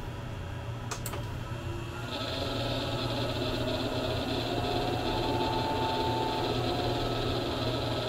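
A click, then about two seconds in the cooling fan of a diesel heater's power supply spins up under the heater's load and runs steadily, its bearings making a racket: worn fan bearings.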